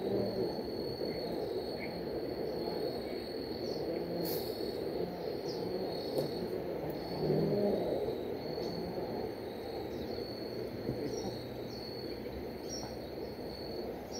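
Insects trilling steadily on one high pitch, over a steady low background hiss, with a few short high chirps scattered through.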